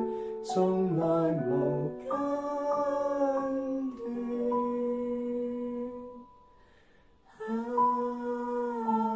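Slow Chinese worship song sung in long held notes, with a short break about six seconds in; near the end the voices hold an open "ha" vowel.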